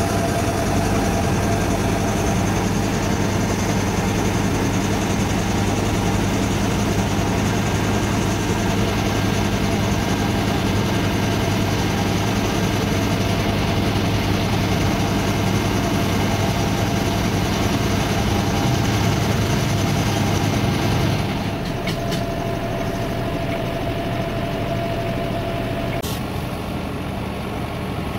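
Excavator's diesel engine idling steadily, a low hum with a faint steady whine on top. About three-quarters of the way through it gets quieter and changes, and the whine stops a few seconds later.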